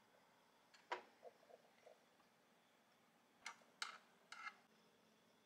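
A few soft, sharp clicks and taps from handling a waffle maker: one clear click about a second in with a few faint taps after it, then a quick run of clicks near the end, as a knife taps against the nonstick waffle plates while cooked waffles are lifted out.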